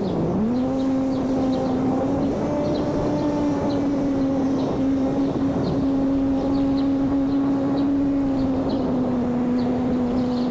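Electric motor and propeller of a homemade RC airplane running steadily as a pitched whine. Just after the start the pitch dips sharply as the throttle is briefly eased, then climbs back and holds.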